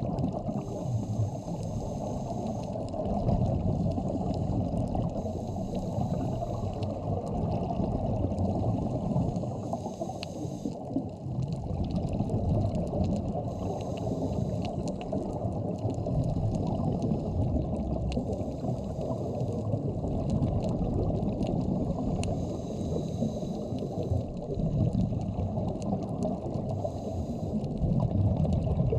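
Underwater sound on a scuba dive: a steady, muffled rush and gurgle of water, with a diver's regulator breaths hissing at regular intervals, about every four seconds.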